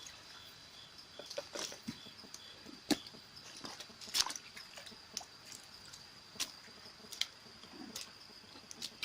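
Quiet outdoor night ambience: a steady high-pitched whine with scattered short clicks and knocks, the clearest about three and four seconds in.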